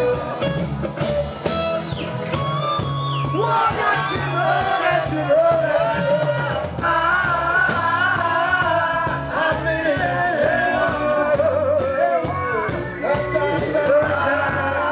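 Live reggae band playing, with a singer holding long wavering notes over a steady bass line.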